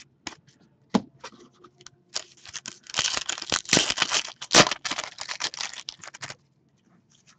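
Trading card packs and cards being handled by hand: a sharp click about a second in, then dense crinkling and scratching of wrapper and card stock from about two seconds in until about six seconds in.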